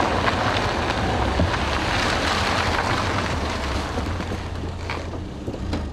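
Toyota sedan driving up and slowing to a stop, a steady rush of engine and tyre noise over a deep rumble that eases slightly near the end.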